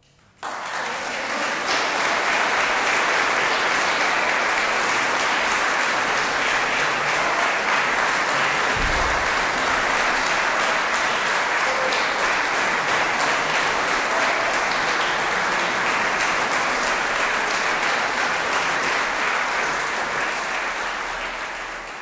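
Audience applauding, breaking out suddenly about half a second in and continuing steadily, fading away at the end.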